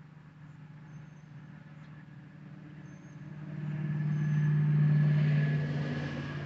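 A motor vehicle passing by: a steady low engine hum with road hiss that grows louder from about three seconds in, peaks around five seconds, then fades.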